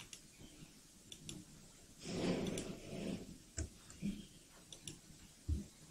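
Faint computer mouse clicks, scattered and irregular, with a soft breathy rustle about two seconds in and a couple of dull low thumps.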